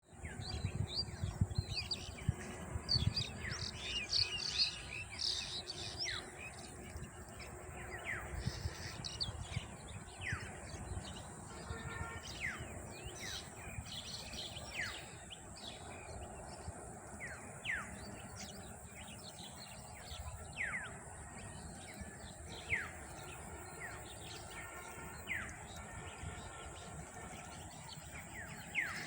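Birds calling outdoors: many short downward-sliding whistled notes repeating every second or two, mixed with bursts of high chirping that are busiest in the first several seconds, over a low rumble and a steady high hiss.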